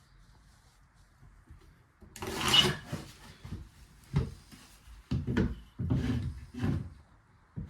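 A spirit level being handled on a wooden floorboard. About two seconds in there is a short scraping slide, then several wooden knocks and rubs as it is set in place.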